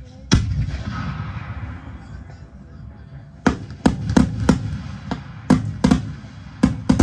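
Recorded fireworks salute played back through Diatone DS-3000 loudspeakers: one heavy bang with a long low rumble dying away, then about eight sharp bangs in quick succession from about halfway on.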